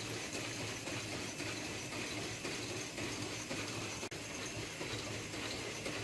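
Motor-driven CNC saw running with a steady mechanical noise and a faint rhythmic clatter, which drops out for an instant about four seconds in.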